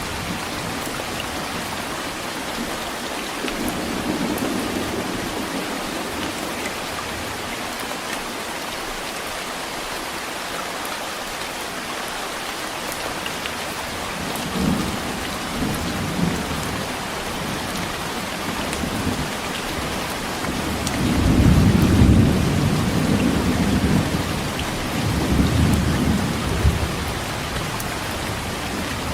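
Steady heavy rain with thunder rumbling several times, the deepest and loudest rolls coming about two-thirds of the way through.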